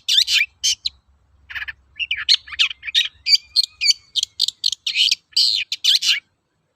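Long-tailed shrike (cendet) singing a fast string of short, sharp, chattering notes, with a brief pause about a second in; the song stops about six seconds in.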